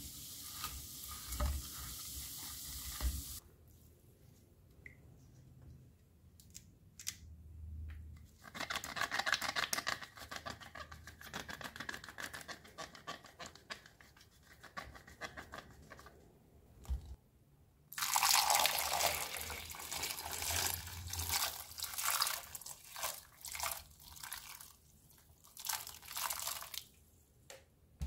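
Vinegar and baking soda fizzing in a glass bowl, which cuts off about three seconds in. Then hands scrub wet apples in the bowl, with watery rubbing, squelching and splashing in two longer spells.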